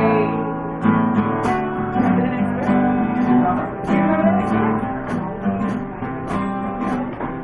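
Acoustic guitar strummed in a steady rhythm, about two strums a second, playing an instrumental break between sung verses of a folk-style song.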